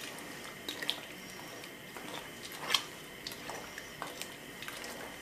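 Metal spoon stirring crayfish in water in a stainless steel stockpot: soft sloshing with a few scattered clinks of the spoon against the pot, the sharpest a little under three seconds in.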